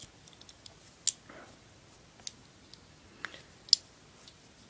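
Small metal clicks and snaps of a pocket multi-tool's blades and tools being folded shut, a handful of scattered clicks with the loudest one near the end.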